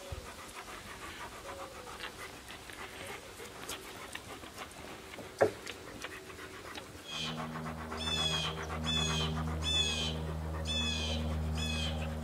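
A dog panting in quick, even breaths, with one sharp click about halfway through. From about seven seconds in, a steady low hum joins, and a bird gives a series of about six short, high chirps, each sweeping downward.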